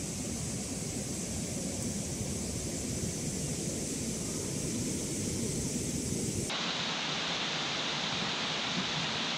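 Steady rushing noise with a low rumble, which switches abruptly about two-thirds of the way through to the bright, even hiss of a fast mountain stream running over rocks.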